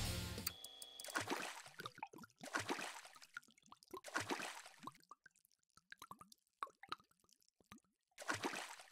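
Liquid drip and splat sound effects: a string of separate plops, some with a short pitched blip, and a denser burst of splashes near the end. The tail of a rock track dies away in the first moment.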